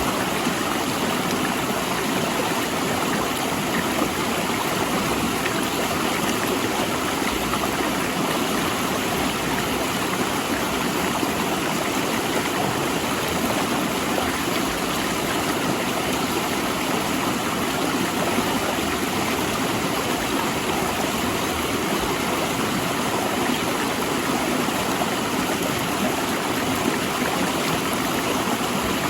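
Rushing river water flowing over and between large rocks: a steady, dense roar of rapids that holds unchanged throughout.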